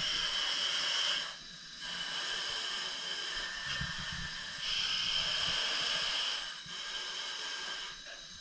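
Hiss of gas rushing inside a hyperbaric diving chamber, from the chamber's air system and the divers' oxygen breathing masks, swelling and easing in stretches of one to two seconds.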